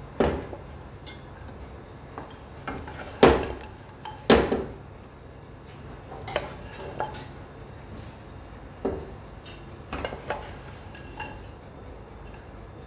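Wooden spatula knocking and scraping against a non-stick wok as glazed chicken wings are lifted out and set into a glass dish. Scattered sharp knocks, the loudest two about three and four seconds in.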